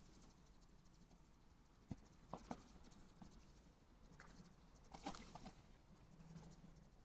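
Faint scuffling of red foxes moving and tussling on the ground, with a few short sharp sounds about two seconds in and again about five seconds in.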